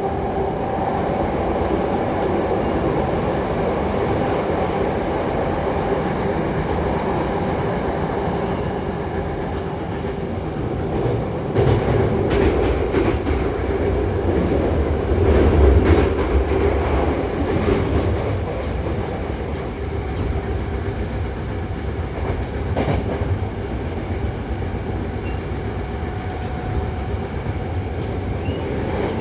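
Hankyu 8000-series electric train running, heard from inside the car: a steady rumble with a steady tone, and clicks over the rail joints. It grows louder about halfway through, then settles.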